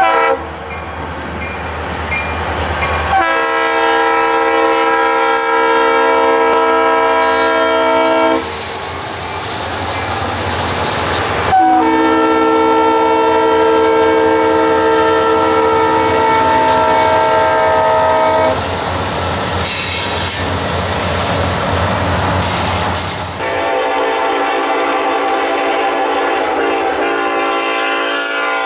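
Norfolk Southern diesel freight locomotives passing and sounding their multi-note air horns in three long blasts, each several seconds long. Rumbling engine and rail noise lies between the blasts.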